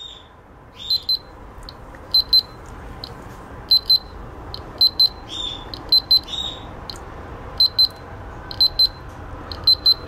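Piezo buzzer on a remote-control fan's circuit board beeping in short, high double beeps, about eight pairs at roughly one pair a second, each time the test lead closes the circuit through a fuse: the sign of continuity.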